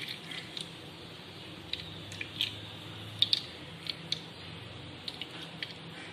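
Watermelon juice poured from a steel strainer into a plastic ice tray: scattered small drips and light clicks, about a dozen spread irregularly, over a faint steady hum.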